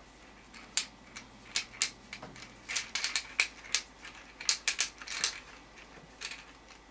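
Irregular sharp clicks and light clinks of small GSG-5 lower-assembly parts being handled and fitted together by hand.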